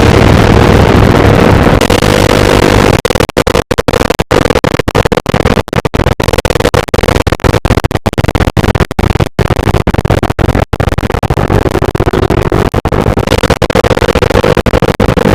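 Loud, harsh, noisy electronic sound effect. From about three seconds in until about eleven seconds it is chopped by many brief silent cuts in an irregular stutter. Near the end a steady hum-like tone returns under the noise.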